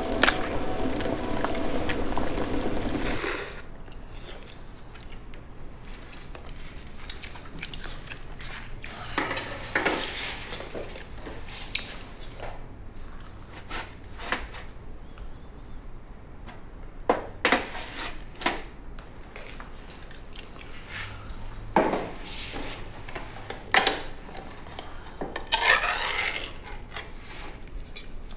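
Scattered clinks and knocks of tableware: chopsticks, bowls and a metal pot handled at a table during a meal. A few seconds of music at the start cut off suddenly.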